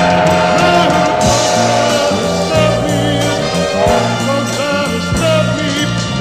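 An orchestral pop song playing: long held notes over the full band backing, in a passage between the lead vocal lines.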